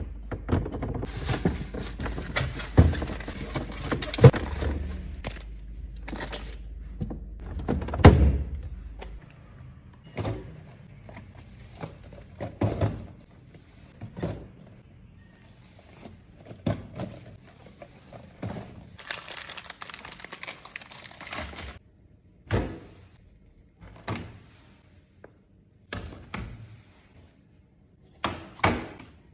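Food packages and containers being set into a refrigerator: a string of knocks and thunks on the shelves, with two stretches of plastic rustling. A low hum stops about nine seconds in.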